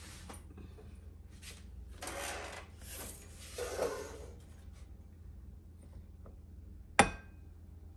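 Kitchen handling sounds as a tray of bread rolls goes into the oven: a few short scraping, rubbing sounds in the first half, then one sharp knock about seven seconds in.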